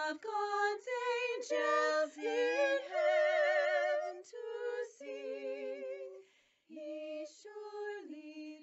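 A woman singing a slow melody unaccompanied, holding notes with vibrato, in phrases broken by a short pause about two thirds of the way through.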